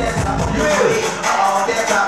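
UK garage dance music played loud over a club sound system. The deep bass cuts out about a second in and drops back in at the end.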